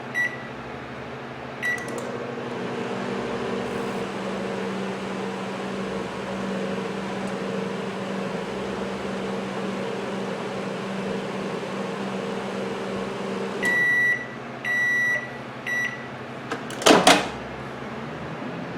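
Samsung microwave oven: two quick keypad beeps and a start beep, then the oven running with a steady hum for about twelve seconds while heating water, a sign that it now works without the SE error code. It stops with three longer end-of-cycle beeps, followed by a loud clunk near the end as the door is opened.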